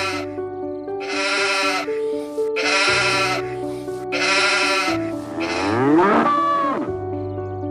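Sheep bleating three times, each bleat a wavering call under a second long, over steady background music. About five seconds in, a cow moos once, its pitch rising and then falling.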